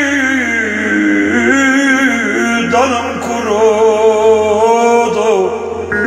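A man singing an uzun hava, a free-rhythm Turkish folk song, in long held notes that waver with ornaments. A plucked long-necked lute (bağlama) comes in near the end.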